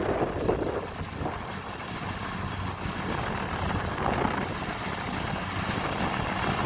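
Kubota DC70 combine harvester's diesel engine running steadily.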